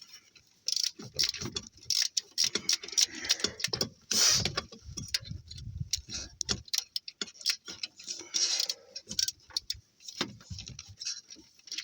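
Ratchet wrench with a 10 mm socket clicking in irregular runs of quick ticks, with a few scrapes and knocks of metal tools, as the alternator's lower bolt is tightened after the belt is tensioned.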